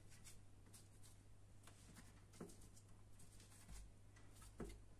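Near silence with faint crinkles and light taps of plastic cling film being pressed and smoothed by hand over a dish, over a steady low hum.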